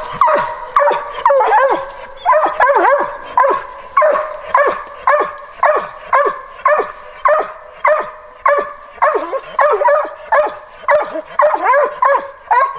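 Squirrel dog tree-barking: short, evenly repeated barks at about two a second, the steady bark of a hound treeing a squirrel. Now and then a second bark overlaps.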